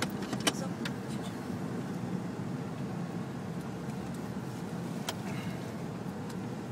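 Jeep crawling over a rough off-road track, heard from inside the cabin: a steady low hum of engine and drivetrain with a few sharp knocks from the body, the clearest about half a second in and another about five seconds in.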